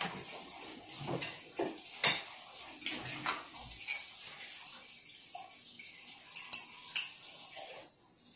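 Kitchenware clinking and knocking as coffee is made at a counter: a mug, containers and a spoon set down and handled, in a string of separate irregular clinks and knocks, the sharpest about two seconds in and again near the end.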